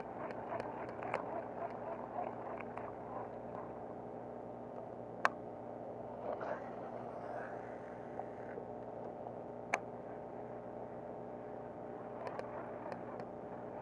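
A steady mechanical hum, like a distant engine or motor running, with a few faint ticks and two sharp clicks about four and a half seconds apart.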